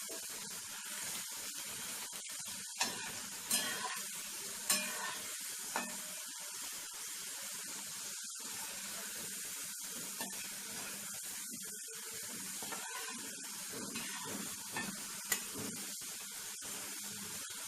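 Potato pieces frying in hot oil, with a steady sizzle. A stirring utensil clinks sharply against the pan four times in the first six seconds and once more near the end.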